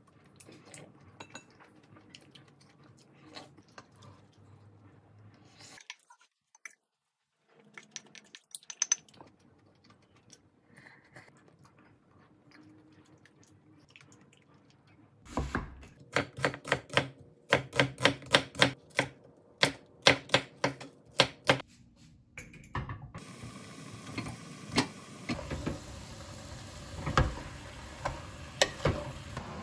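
Faint clicks of spoon and tableware, then from about halfway a run of loud sharp clicks or knocks, about two a second, for several seconds. Near the end, pork and kimchi sizzle as they fry in a pot, with knocks of a wooden spatula stirring them.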